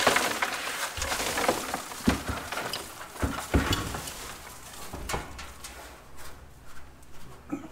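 Leaves, acorns and grass clippings pouring out of a Swardman reel mower's grass catcher into a plastic trash can, the hopper shaken and knocked against the can's rim to empty it. The pour is loudest at the start; sharp knocks come several times between about two and five seconds in.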